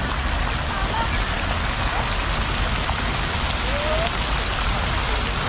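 Water from the plaza's fountain splashing steadily, an even hissing spatter like heavy rain on pavement, with faint voices in the background.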